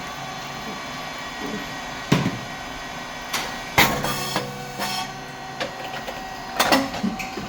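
Rice cake puffing machine running a production cycle: a steady mechanical hum with a few sharp knocks and clacks, the loudest a single hard pop just under four seconds in.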